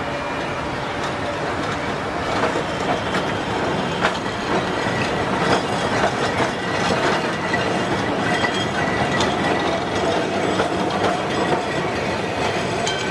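Tram running on its rails: a steady rumble with irregular clattering clicks from the wheels and a faint steady whine.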